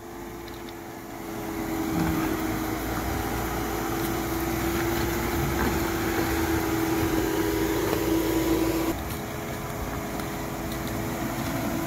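Lifted Jeep Cherokee Trailhawk on 31-inch Nitto Trail Grappler tyres crawling slowly over rocks, its engine running under light load with a steady hum. It gets louder about two seconds in and drops back near the end.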